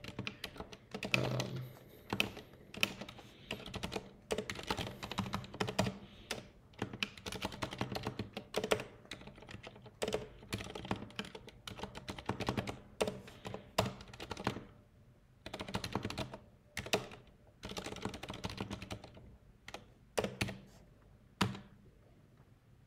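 Typing on a computer keyboard: irregular runs of keystrokes with short pauses, including a longer break near the end.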